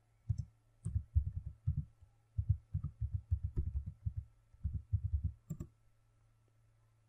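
Typing on a computer keyboard: dull, low keystroke thuds in quick irregular runs as a short terminal command is entered, ending with a sharper final stroke, the Enter key, about five and a half seconds in.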